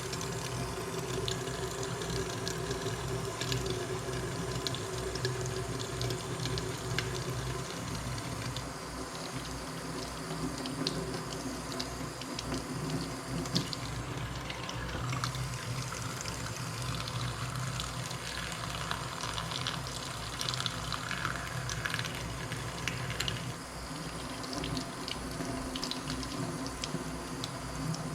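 Hot water running from a tap into a sink as mixing-console knobs are washed, with scattered small clicks of the knobs being handled in the water.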